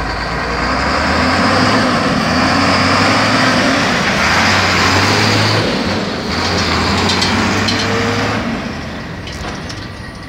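Ford Cargo truck's diesel engine running as it drives past close by, then fading as the truck pulls away near the end.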